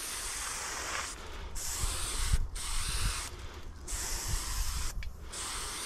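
Aerosol spray paint can hissing in a series of short bursts, about five in all with brief breaks between, as lines are sprayed onto a wall, over a low rumble.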